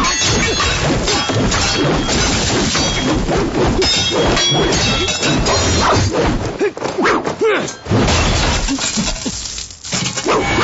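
Movie fight sound effects: a rapid run of weapon clashes, whacks and thuds as a polearm blade and swords strike, with a quieter, more broken stretch in the last few seconds.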